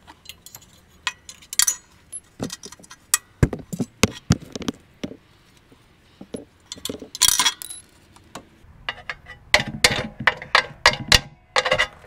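Metal clinks and knocks as a long threaded bolt and metal spacers are worked by hand through a motorcycle crash bar and its frame mounting bracket. There is a cluster of rattling about seven seconds in and a quick run of sharp taps near the end.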